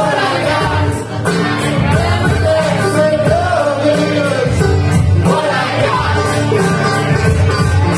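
Live band music in a bluegrass and hip-hop style: a man singing over strummed acoustic guitar and a steady beat.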